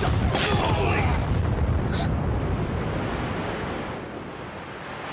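Explosion sound effect: a deep rumbling blast with a sharp burst about half a second in, dying away over a few seconds into a steady rushing noise.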